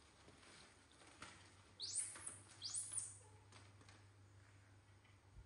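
Two short, high-pitched squeaks from a pet macaque about two and three seconds in, each rising quickly and then levelling off. Faint clicks and rustles sit beneath them.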